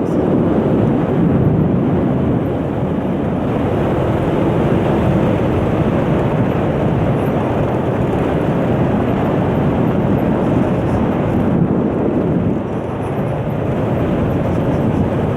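Loud, steady rush of wind over the microphone mixed with a 125cc motor scooter's engine and tyre noise while riding along, swelling suddenly at the start.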